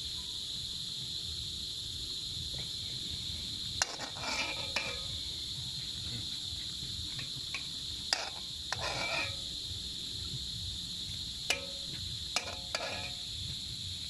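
Steady high-pitched drone of an insect chorus, like crickets. A few sharp metallic clinks of a metal spoon against a cooking pot cut in, about four seconds in, around eight seconds, and twice near the end, some with a short ring.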